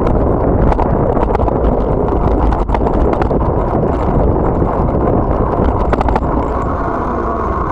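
Ride noise on a bicycle-mounted camera: a steady rumble of tyres and air on the microphone, with irregular clicks and rattles as the bike and camera mount jolt over the road surface.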